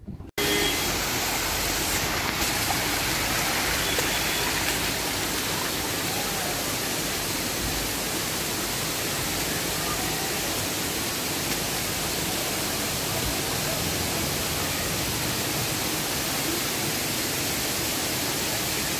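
Waterfall pouring down rocks: a steady, even rush of water that starts abruptly a moment in.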